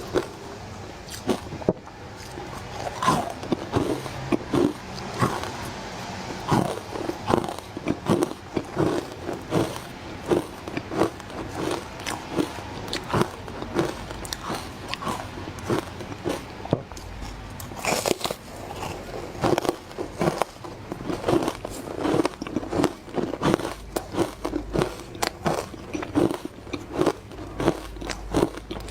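Close-miked crunching of frozen matcha ice being bitten and chewed: a rapid, continuous run of crisp bites, about two a second.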